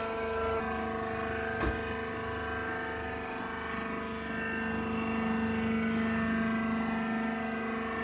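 Hydraulic rice husk baler's power unit running with a steady mechanical hum, its lower tone swelling slightly in the second half. A single light knock sounds just under two seconds in.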